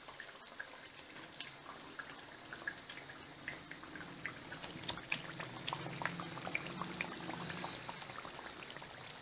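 Chicken curry sizzling and bubbling in a karahi on a gas burner, a faint stream of small crackles, while cream is poured into the pan.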